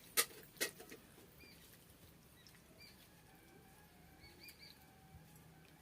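Two sharp clicks in the first second, then faint, short, high bird chirps scattered over a quiet background.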